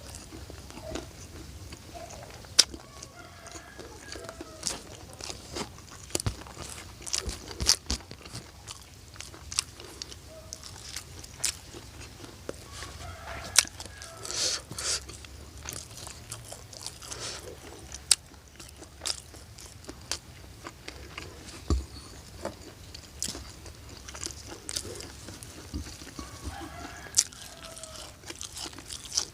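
Close-up eating sounds: chewing with sharp crunches of crispy food scattered throughout. A few short pitched calls sound in the background, near the start, in the middle and near the end.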